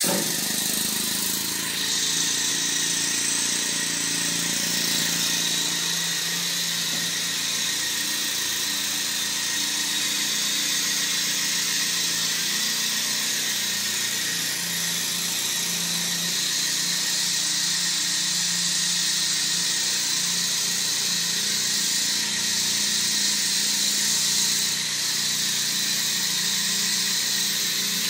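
Compressed air hissing steadily through a red air hose into a finned aluminium air-driven device on a drum, with a faint squealing whine. It starts suddenly as the hose is connected and stays steady.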